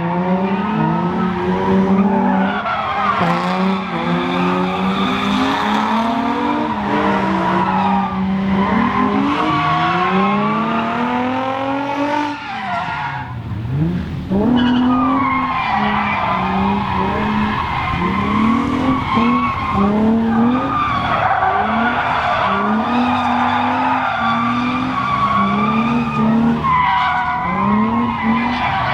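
Infiniti G35's 3.5-litre V6 revving up and down hard while its tyres squeal in a slide, as the car is driven on its freshly welded differential.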